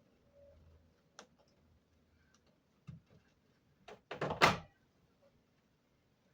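A light click, a single thump, then a quick cluster of knocks and thumps about four seconds in, the last the loudest. These are sounds of hands and tools working on the window air conditioner's mounting.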